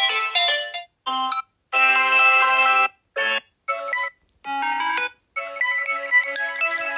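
Samsung Galaxy A20e ringtones played through the phone's speaker one after another. One electronic melody fades out in the first second, then about six short previews of different tunes each start and cut off abruptly after a fraction of a second to about a second, with brief silences between them. A longer one begins about five and a half seconds in.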